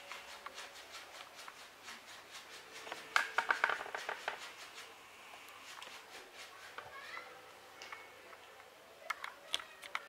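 Origami flapping bird of folded A4 paper being handled, giving a quick run of crisp paper clicks and rustles about three seconds in and a few more near the end.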